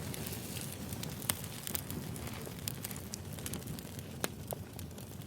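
A fire crackling, with scattered sharp pops, one or two a second, over a steady hiss.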